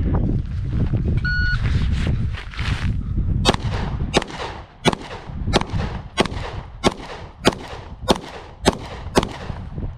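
A shot timer gives one short beep about a second in. Then a 9mm Glock 48 pistol fires ten shots at an even pace, about one every two-thirds of a second, the last near the end. Wind rumbles on the microphone before the shooting starts.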